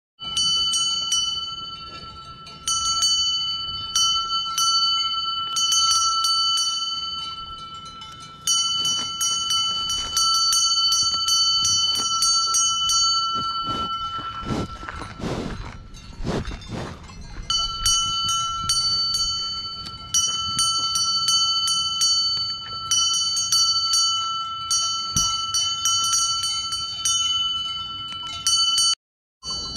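Cowbell on a grazing cow's collar clanging in irregular clusters of strikes, each leaving a steady high ring. Around the middle the bell goes quiet for a few seconds while the cow's muzzle breathes and bumps right against the microphone.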